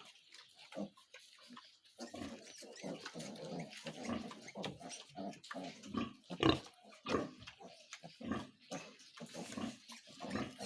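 Domestic pigs in a pen making a rapid, irregular run of short grunts, with one louder call about six and a half seconds in.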